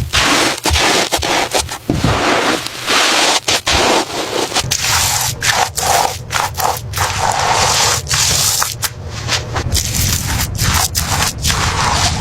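Loud, rough scraping noise, broken into short pieces by frequent sudden stops and restarts.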